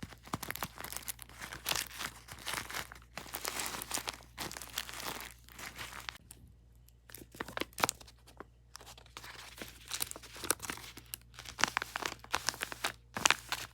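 Crinkling and tearing of paper or plastic, handled in irregular bursts with brief pauses.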